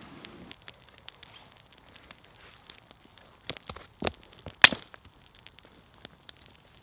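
Small twig-kindling campfire crackling as it catches, with scattered sharp ticks and a few louder snaps a little past halfway.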